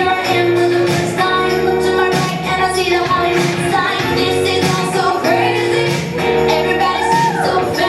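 Recorded pop song with a female lead vocal over a steady beat.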